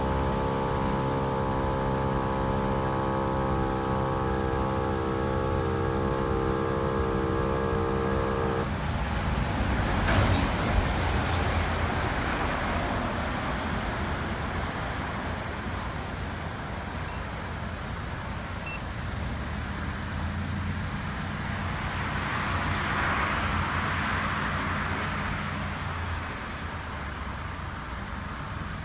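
A held musical chord that cuts off abruptly about nine seconds in, followed by steady road traffic noise with a low engine rumble. A vehicle swells past a little after twenty seconds.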